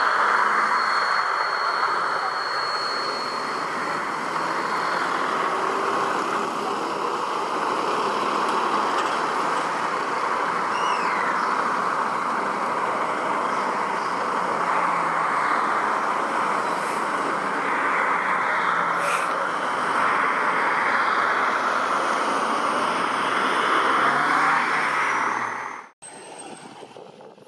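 Boeing 777's twin GE90 turbofan engines at takeoff thrust through the takeoff roll and lift-off: a loud, steady rushing jet noise that cuts off suddenly near the end.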